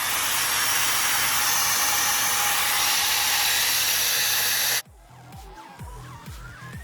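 Daily Top 5-in-1 hair dryer brush, fitted with its round brush attachment, blowing air with a steady loud hiss, cutting off abruptly nearly five seconds in. Electronic music follows.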